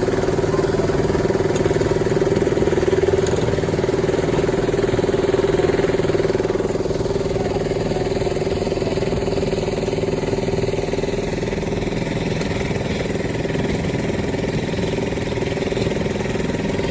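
Engine of a miniature railway locomotive running steadily as it hauls the passenger carriages, heard from on board the train. The drone eases off slightly about six seconds in.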